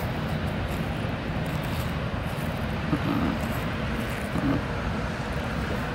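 Steady outdoor background noise, an even low rush with no distinct events.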